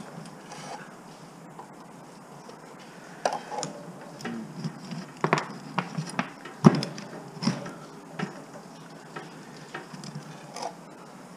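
Irregular small metallic clicks and clinks of a hand tool and computer circuit card parts being handled while working at a heat sink's screws, with one sharper knock a little past halfway.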